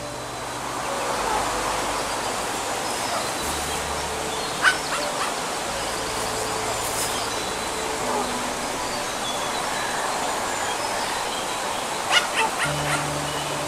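Outdoor pond ambience: a steady rushing hiss under soft background music of held, slowly changing notes. A short sharp sound stands out about a third of the way in, and a quick run of three or four more comes near the end.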